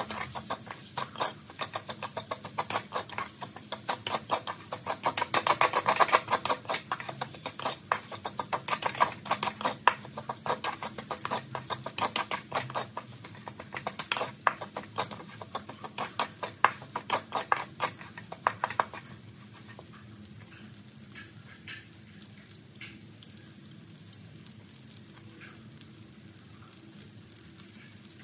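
Wooden spatula stirring and scraping fried rice around an aluminium wok, a fast run of scrapes and clicks against the metal. The stirring stops about two-thirds of the way through, leaving a faint frying hiss with the odd light tick.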